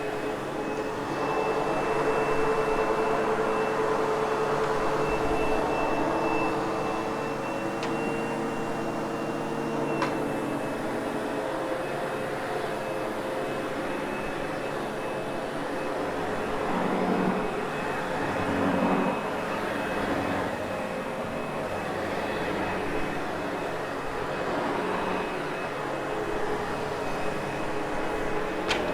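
Sebo X8 upright vacuum cleaner running on carpet: a steady motor hum with a high whine over it, swelling and easing a little as it is worked across the carpet, with a light click about ten seconds in.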